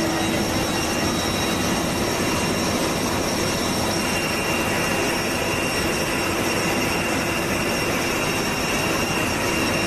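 Aircraft jet turbine running steadily: an even rush of noise with a steady high whine over it.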